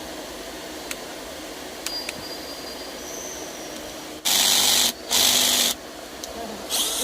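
Bosch GSR 120-LI cordless drill run twice in short bursts of about half a second each, a few seconds in, after a few light clicks.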